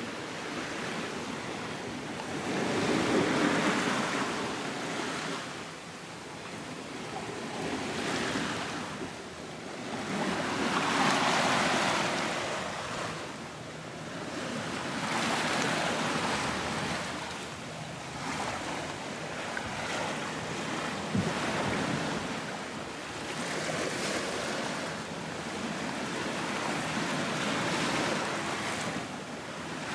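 Sea water rushing and swishing along a sailing catamaran's hulls, surging and easing every few seconds, with wind buffeting the microphone.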